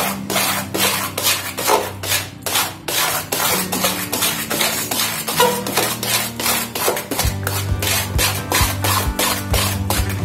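A hand stirring thick rice batter in a steel bowl: rapid strokes, about four a second, rubbing and squelching against the metal. Background music runs underneath, with a low bass part coming in about seven seconds in.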